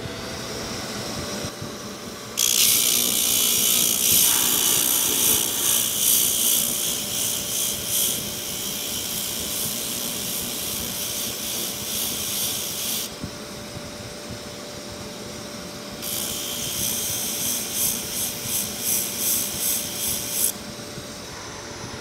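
Electric motor spinning an 80-grit sanding disc at high speed with a steady hum. A geode is pressed against the disc for dry sanding, giving a loud gritty hiss from about two seconds in until about thirteen seconds, and again from about sixteen to twenty seconds.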